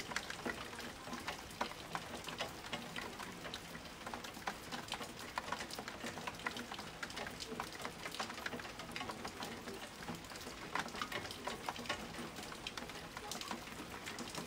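Rain falling during a thunderstorm: a steady hiss thick with irregular ticks of drops hitting surfaces.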